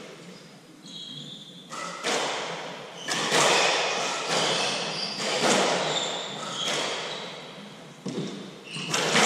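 Hardball doubles squash rally: the hard ball cracking off racquets and the court walls in a string of sharp hits, echoing in the enclosed court, with a few short high squeaks between shots.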